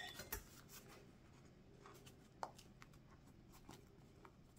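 Near silence with faint handling sounds as a corn-masa gordita is held and opened: light rubbing, a few soft clicks in the first second and another about halfway through.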